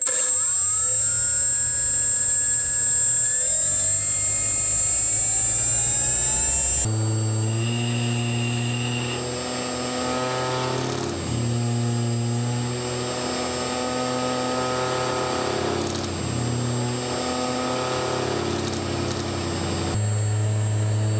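3D-printed duct fan driven by a brushless drone motor through an ESC, running loud with a whirring and a steady high whine. It spins up at the start, its pitch rising, then changes pitch in steps as the throttle is turned up and down.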